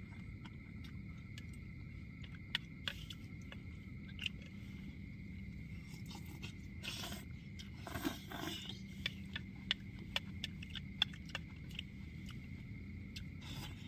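Plastic spoons clicking and scraping on paper plates while eating noodles: scattered small clicks, busier in the second half, over a faint steady hum.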